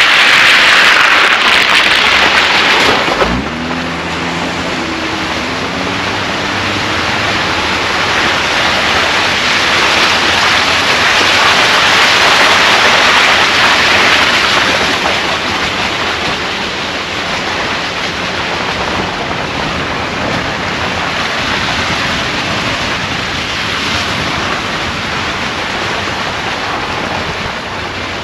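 Steady rushing noise of a Tesla Model Y driving slowly on a muddy dirt road: tyre and wind noise, loud and hissy, with no engine note. It drops a little about three seconds in.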